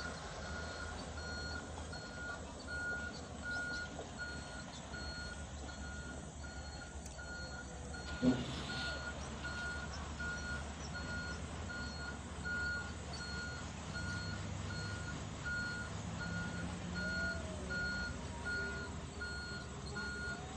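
A heavy machine's reversing alarm beeping steadily, about two beeps a second, over the low rumble of diesel engines running. A single sharp knock about eight seconds in.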